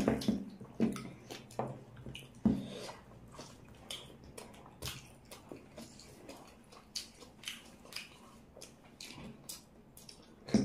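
Close-up eating sounds: fingers squishing and tearing chicken in wet curry, with chewing and lip smacks, heard as irregular wet clicks, thicker in the first few seconds, and one louder click near the end.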